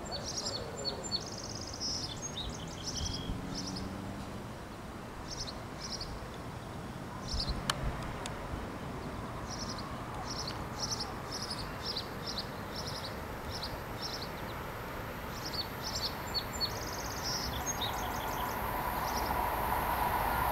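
Birds chirping in repeated clusters of short high notes over steady outdoor background noise, with one sharp click about eight seconds in. An approaching Amtrak passenger train, led by an ACS-64 electric locomotive, builds as a rising rush and hiss over the last few seconds.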